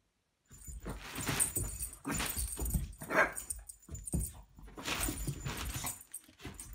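A large plastic bag crinkling and rustling in irregular bursts as dogs paw and nose at it, with dog whimpers among the rustling. The sound starts abruptly about half a second in.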